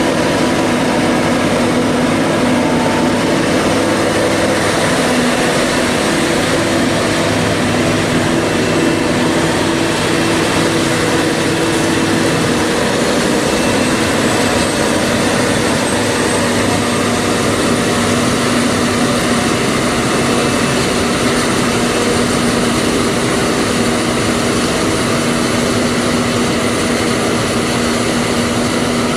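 Heavy diesel farm machinery at a corn silage harvest running steadily under load, a dense engine drone with several steady tones. About halfway, the engine note shifts and a thin high whine sets in, slowly rising in pitch.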